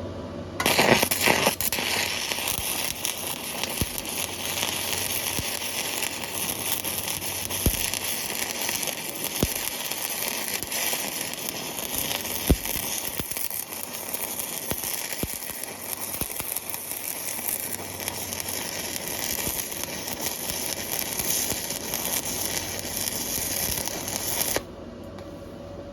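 Welding arc crackling steadily, with scattered sharper pops, striking just under a second in and cutting off abruptly near the end when the weld stops.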